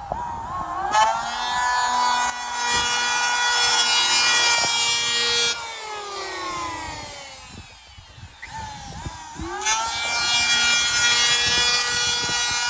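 Electric hand planer spinning up with a rising whine and shaving down a new wooden strip glued onto a casement sash for about four seconds. It is then switched off and winds down with a falling whine. About three-quarters of the way through it starts up again and cuts once more.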